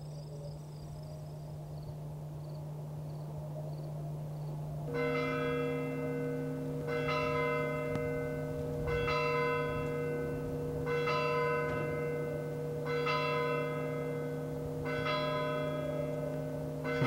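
Tower clock bell tolling slowly, about six strokes roughly two seconds apart starting about five seconds in, each stroke's hum ringing on under the next, over a low steady drone.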